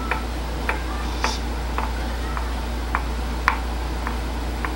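Light, sharp clicks at a fairly even pace, a little under two a second, over a steady low hum.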